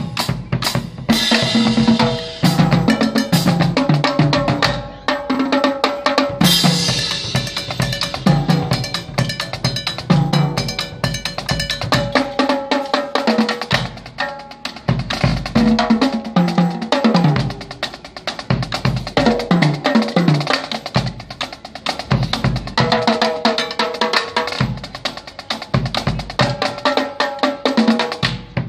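Marching drumline playing a fast cadence on snare drums and a Pearl bass drum: dense rolls and rim-hits over deep bass-drum strokes, with pitched notes running beneath the drumming.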